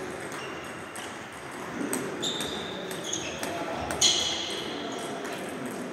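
Table tennis balls clicking against bats, tables and the floor in a large, echoing sports hall. A few short high squeaks stand out, the loudest about four seconds in, over faint background voices.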